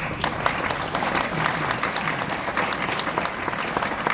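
Audience applauding, many hands clapping at once to welcome the next speaker to the podium.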